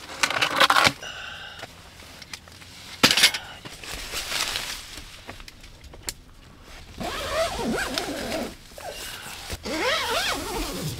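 Tent door being closed up: heavy fabric rustling and a sharp knock, then a zipper drawn along the door in several buzzing runs over the last few seconds.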